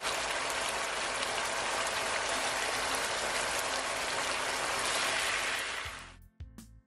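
A pot of thick curry with mushrooms and vegetables simmering, bubbling and popping steadily. It fades out about six seconds in as plucked music begins.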